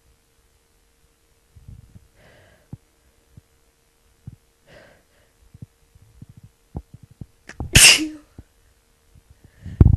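A woman with a cold sneezing once, loudly, about eight seconds in, after a few short breathy inhales. A low thump comes near the end.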